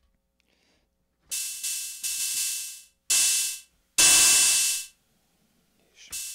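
Akai Rhythm Wolf drum machine's analog drum voices played from its pads through the howl distortion with the noise turned up. About six harsh, hissing noise hits, each dying away within a second and carrying a few steady whistling tones; the loudest comes about four seconds in.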